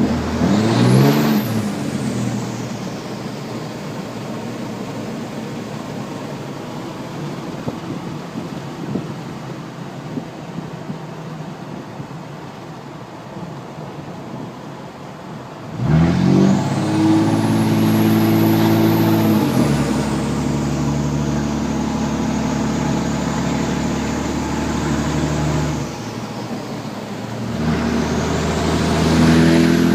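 Turbocharged 5.9 L Cummins straight-six diesel in a 2007 Dodge pickup, running through an aFe intake and a straight-piped 4-inch exhaust. It pulls hard three times, and each time the turbo whistle climbs to a high pitch as the engine note rises. In the middle pull the whistle holds high for a few seconds before easing off, and between pulls the engine cruises more quietly.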